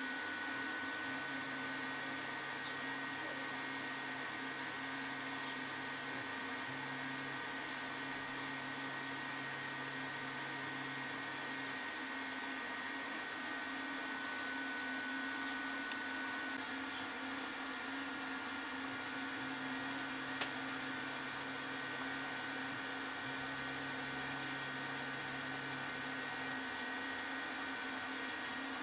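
Z-axis stepper motor of a homemade CNC milling machine driving the axis in four low-pitched, steady moves of about four to five seconds each, in two back-and-forth pairs, over a constant electrical hum and a high whine from the machine's motors and drivers. The runs are the axis travelling 9 mm each way during motor tuning.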